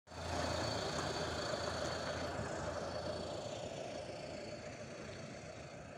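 A motor vehicle engine running steadily, its sound slowly fading.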